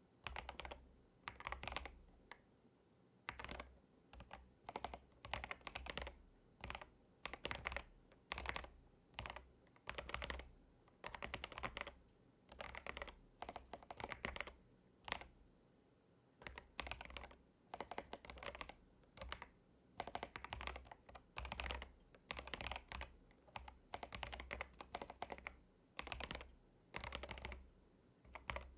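Typing on an Epomaker DynaTab 75X mechanical keyboard: rapid clattering keystrokes in short bursts, a word at a time, with brief pauses between them.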